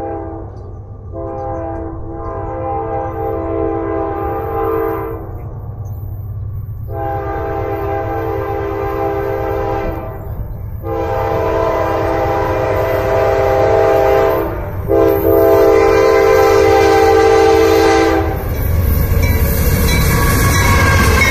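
Norfolk Southern diesel freight locomotive's air horn sounding a series of long blasts for a grade crossing as the train approaches. Near the end the horn stops and the locomotive's engine and wheels run past, louder.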